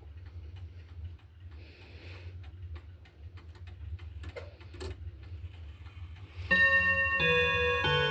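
Urgos dual chime clock movement clicking and ticking over a low hum. About six and a half seconds in, its chimes start a tune, with ringing notes struck one after another.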